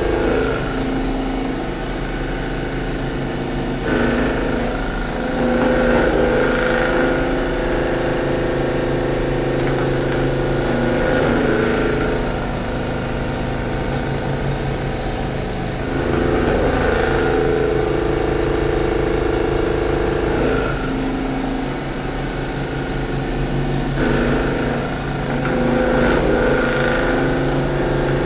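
CNC machine running, a steady mechanical hum with tones that shift in a repeating pattern every few seconds as it works.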